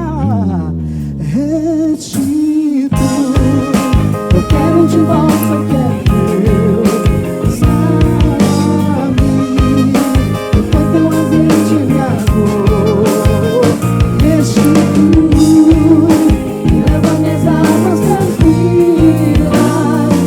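Live soul-gospel band playing an instrumental passage: a held chord with vibrato slides downward at the start, then about three seconds in the full band with drum kit comes in under a wavering lead melody.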